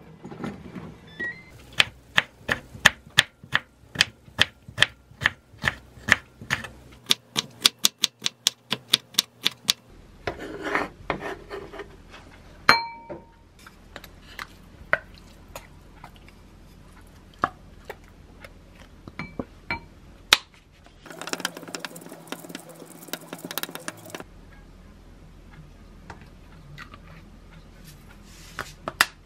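Kitchen handling sounds. First comes a run of quick, evenly spaced clicks, about two a second, lasting several seconds. Then a glass bowl clinks with a short ring, followed by scattered taps and a few seconds of food being scraped and spooned into the glass bowl.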